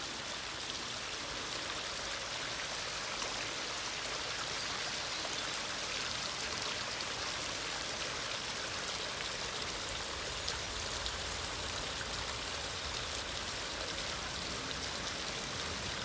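Garden koi pond waterfall, fed by a 15,000-litre-per-hour pump, running: a steady, unbroken rush and splash of water falling into the pond.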